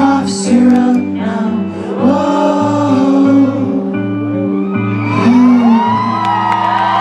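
Live indie rock band playing the closing bars of a song, with sung vocals over sustained bass and chords.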